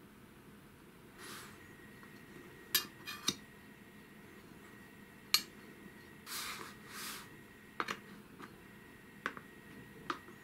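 Short, sharp metallic clinks and knocks from a metal square cake tin being handled and shifted on a countertop, about eight in all, with a few soft brushing sounds between them. Near the end, a metal offset spatula clinks against the tin.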